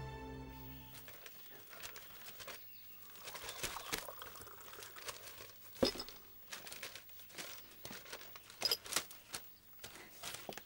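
Sheets of paper being handled and crinkled, with scattered light clicks and knocks and one sharper knock about six seconds in. A soft music cue fades out during the first second.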